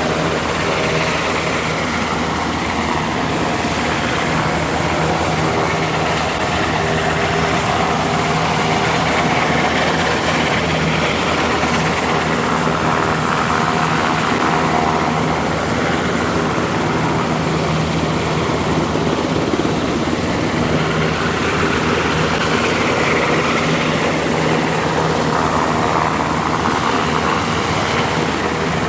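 UH-60J Black Hawk rescue helicopter hovering, its main rotor and twin turboshaft engines running steadily.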